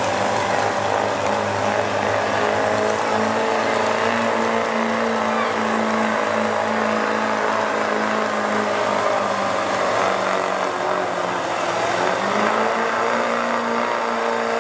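4x4 diesel pickup engine running flat out under full load, pulling a weighted sled. The pitch holds steady, sags about ten seconds in, then climbs back about twelve seconds in.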